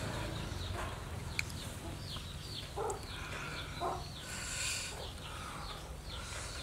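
Chickens clucking with a few short calls a second apart near the middle, and high little chirps scattered throughout; a single sharp click sounds about a second and a half in.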